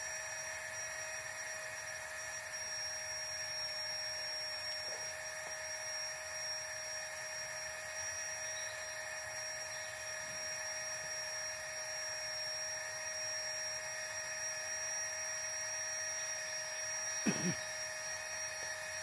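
Flextail mini battery air pump running with a steady whine over a rush of air. A single short knock comes near the end.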